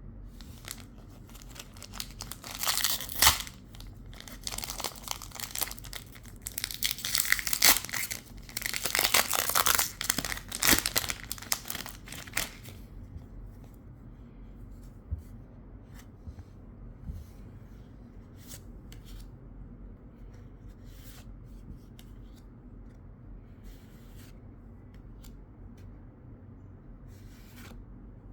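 A Pokémon card booster pack's foil wrapper being torn open and crinkled, in loud crackly bursts for about ten seconds, followed by faint scattered clicks of the cards being handled.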